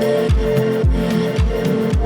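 Background music with a steady beat: a bass drum about twice a second under sustained pitched tones.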